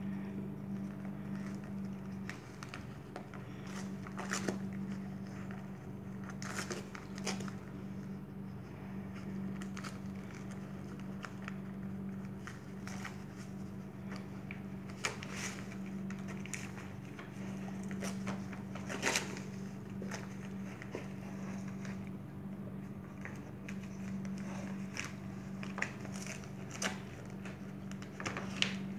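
A dog chewing and tearing at the wrapping paper of a present, with irregular bursts of paper crinkling and crackling over a steady low hum.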